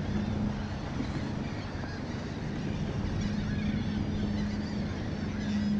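Wind buffeting the microphone and small waves lapping around a kayak, with a steady low hum underneath and faint bird calls.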